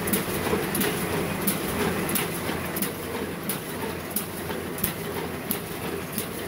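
Paper bag making machine running, a steady mechanical clatter with a sharp clack repeating evenly about one and a half times a second.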